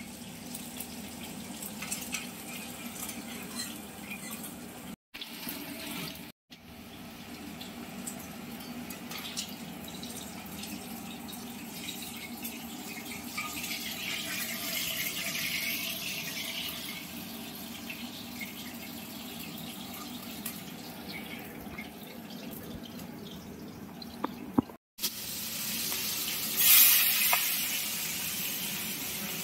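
Wet onion, ginger and garlic spice paste frying in oil in a pan, a steady bubbling sizzle that is being cooked down until the oil separates. It drops out briefly three times, and a louder hissing flare comes near the end.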